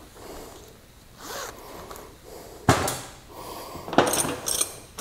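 A screwdriver being packed into a zippered canvas tool pouch: the fabric rustles and rasps, with one sharp knock a little past halfway and more rasping and light clinks near the end.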